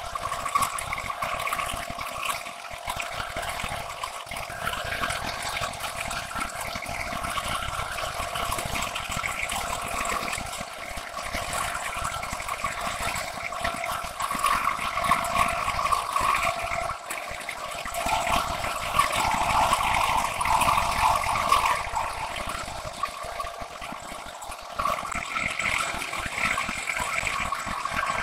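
Insert face mill on a metal planer mill cutting a continuous bevel along a long metal bar: a steady, rough cutting noise with chips spraying off the cutter, louder for a few seconds past the middle.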